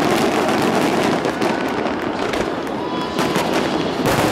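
Aerial fireworks display going off: a dense, continuous run of overlapping bangs and crackles, with a few sharper bangs about a second and a half in and again near the end.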